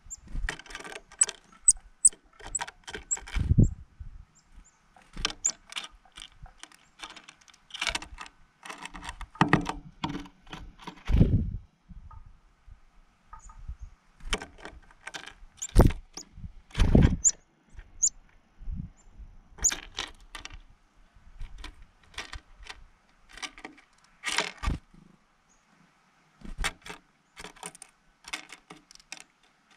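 Irregular clicks, taps and rattles of black sunflower seeds on a wooden platform feeder tray as black-capped chickadees land and pick through them, with a few louder dull thumps.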